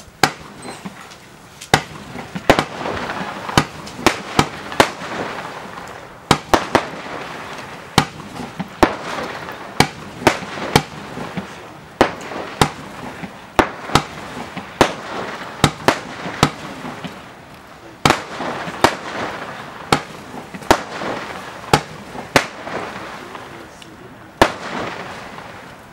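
Xplode Purple Crossette 16-shot firework battery firing: a quick run of sharp pops, often in close pairs, each shot launching and its violet crossette stars splitting, with hissing between the pops. The pops stop near the end.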